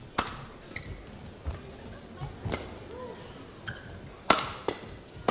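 Badminton rackets striking a shuttlecock in a fast doubles rally: a string of sharp hits at uneven intervals, the loudest about four seconds in.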